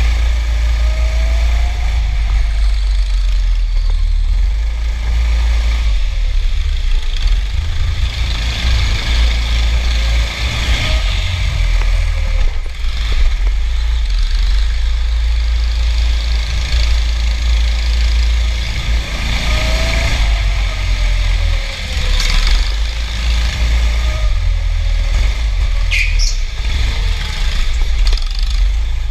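Go-kart driven at speed, heard from an onboard camera: heavy wind rumble on the microphone, with the kart's motor pitch rising and falling through the corners.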